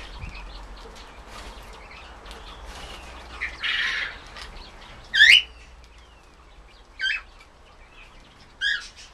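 Zebra finches giving short, sharp calls: a few single calls spaced a second or two apart, the loudest about five seconds in, with faint ticks and rustling in between.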